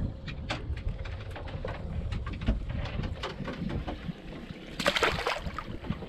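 A snook released over the side of a boat, dropping into the water with a short splash about five seconds in. Under it, wind rumbles on the microphone and small clicks and knocks come and go.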